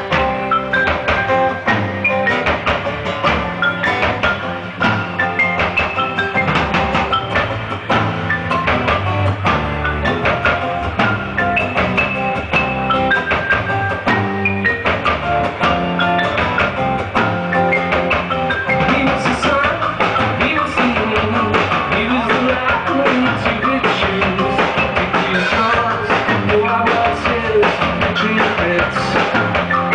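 A live band playing a song: strummed acoustic guitar, electric bass and drums.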